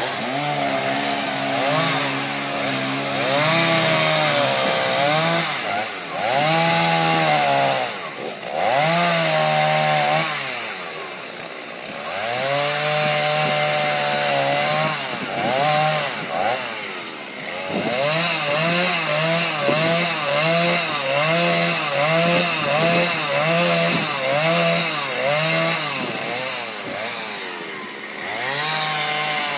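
Petrol chainsaw cutting into a wooden log stump, its engine revving up and down again and again. In the second half it runs through a quick series of short, even throttle blips, then drops off briefly near the end before revving again.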